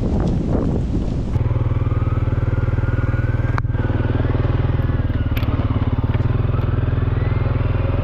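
Wind buffeting the microphone, then, about a second and a half in, an ATV engine running steadily as the machine drives through snow, with a faint wavering whine above it and a couple of sharp clicks.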